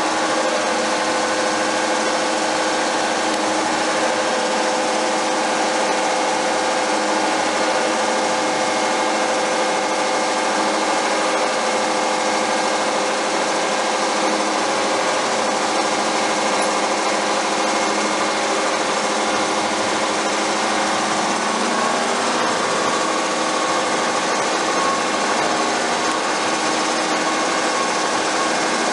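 Giddings & Lewis G60-FX floor-type horizontal boring mill running under power: a steady machine whine made of several held pitches over a mechanical hum, at an even level throughout.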